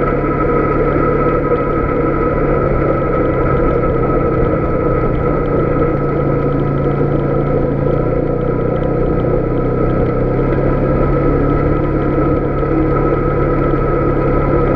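Polaris Sportsman 570 ATV's single-cylinder engine running at a steady cruising speed, with tyres rolling over a gravel road.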